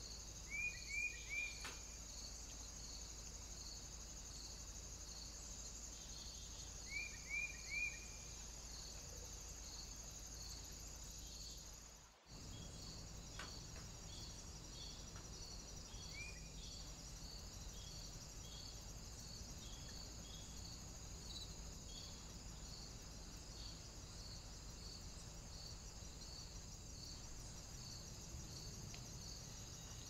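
Crickets chirping steadily in a quick pulsing rhythm of about two chirps a second. Twice a bird gives three quick high chirps, about a second in and about seven seconds in, with one more single chirp around sixteen seconds in; the sound drops out briefly about twelve seconds in.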